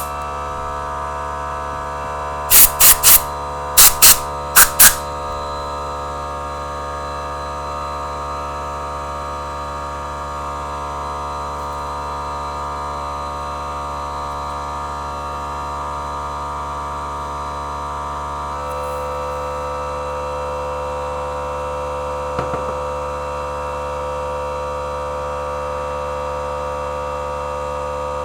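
Short blasts of compressed air, about six quick puffs in small clusters between about two and a half and five seconds in, blowing dust out of a phone's USB-C port. A steady electrical hum with several held tones runs underneath.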